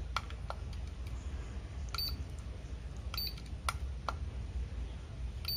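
Push-button control knob on a SkyRC RSTW Pro tire warmer being pressed to select Quick Warm: a few soft clicks, and three short high beeps from the unit about two, three and five and a half seconds in as the button presses register.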